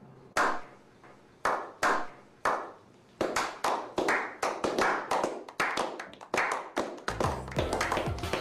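A slow clap: hand claps first one at a time, about a second apart, then coming faster and faster as more people join in, building toward applause.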